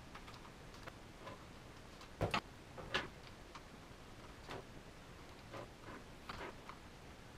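Scattered light clicks and taps from hair-styling tools being handled, a curling iron and a hairbrush; the loudest come a little over two seconds in and again about three seconds in.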